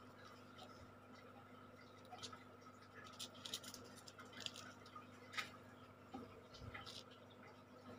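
Faint, scattered scratches and ticks of a toothpick picking at and lifting the peel-off backing film on a sand-painting card, over a low steady hum.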